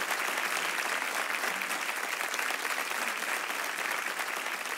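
Studio audience applauding: dense, even clapping that slowly fades.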